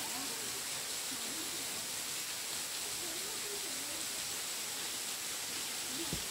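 Steady, even rush of a small waterfall falling into a rock pool, with faint voices now and then and a brief low thump near the end.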